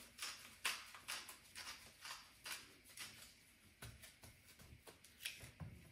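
Faint, irregular small clicks and ticks, about two or three a second, from salt being added to a raw rack of lamb.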